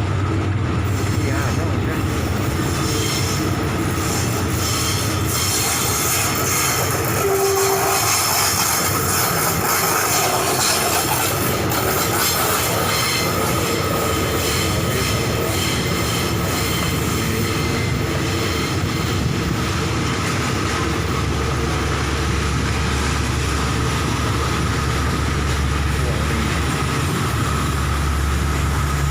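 A train moving through a station, wheels on the rails with some squealing, and a brief tone about seven seconds in. A low steady engine hum comes in during the last third.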